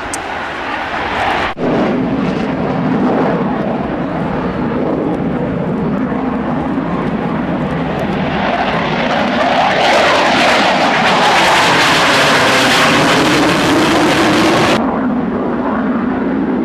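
Jet noise of a Panavia Tornado's twin RB199 turbofans as it flies by, building up to its loudest and harshest about ten seconds in. It then drops off abruptly near the end.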